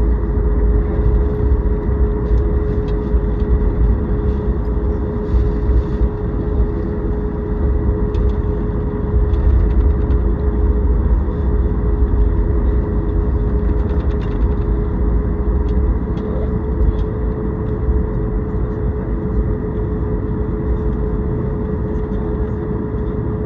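Cabin noise of a Boeing 737 MAX 8 taxiing after landing: its CFM LEAP-1B engines running at idle with a steady hum over a heavy low rumble, and faint light rattles.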